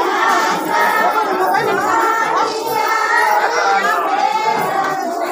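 Many voices at once from a group of people in a room: chatter mixed with group singing, with sustained, wavering sung lines over the talk.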